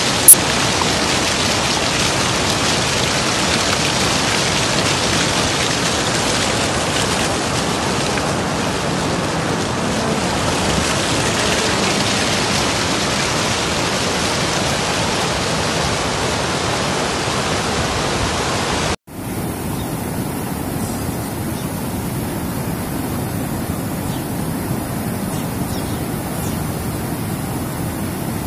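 Turbulent floodwater rushing and surging, a steady loud wash of water noise, with a sharp click just after the start. About two-thirds of the way through the sound cuts and comes back slightly quieter and duller.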